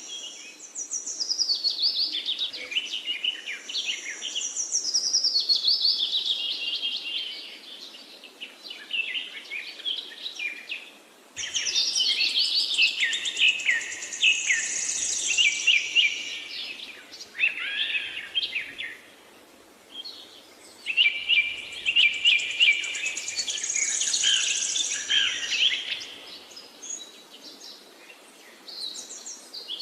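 A flock of small birds chirping rapidly and densely, in three busy bouts with quieter lulls between them; the sound jumps up abruptly about eleven seconds in.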